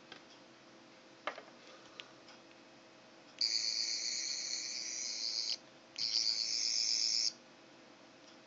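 Homemade sonic screwdriver built around a gutted 10th Doctor toy's electronics, switched on twice and giving its high-pitched warbling electronic buzz, first for about two seconds and then for just over a second. Two light clicks of handling come before it.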